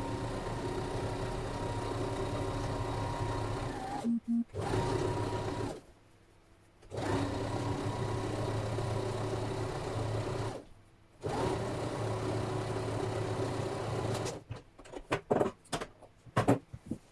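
Electric domestic sewing machine running a straight stitch along a seam in several steady runs, stopping briefly three times. Near the end come a series of short sharp snips as scissors trim the threads.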